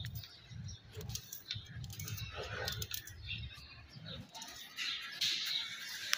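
Low cooing of pigeons for about the first four seconds, with light clicks of a small knife cutting through an onion by hand.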